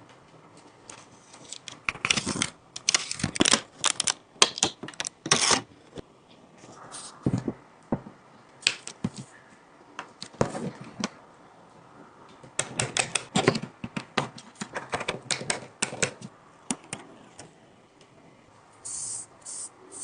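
Clusters of rapid, sharp clicks and taps from small hard tools and parts being handled on a phone under repair, with pauses between the clusters. A short hiss near the end.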